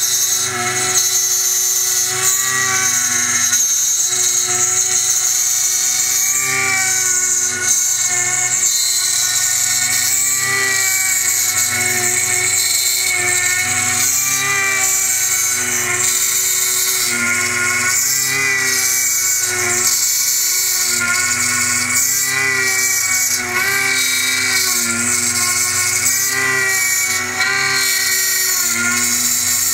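Milling machine cutting a chainring out of 7075-T6 aluminium: a steady high-pitched spindle whine with the cutter's tones wavering up and down in pitch as it moves through the metal.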